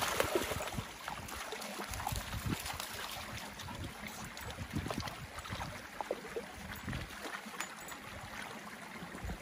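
Shallow river water flowing, with irregular splashes and knocks as a dog wades about in it fetching stones.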